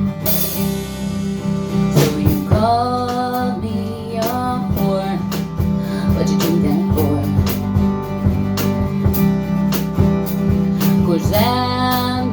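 Acoustic guitar strummed in a steady rhythm, with a singing voice coming in about two seconds in and again near the end.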